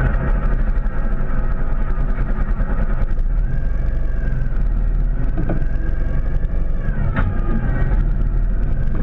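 Sidecar motorcycle engine running on the move, its pitch drifting a little, over heavy wind rumble on the microphone; a brief knock about seven seconds in.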